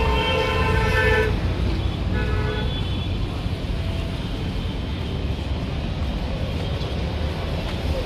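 A vehicle horn toots twice, a blast of about a second at the start and a shorter one about two seconds in, over a steady low road rumble.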